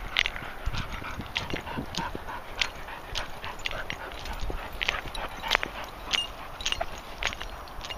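Several dogs moving about through grass and bracken: scattered short clicks and rustles over a low rumble, with no barking.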